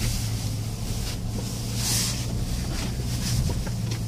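Cabin noise of a Mercedes-Benz GLA 220d diesel driving slowly over a rough dirt forest track: a steady low engine drone and tyre rumble, with a brief hiss about two seconds in.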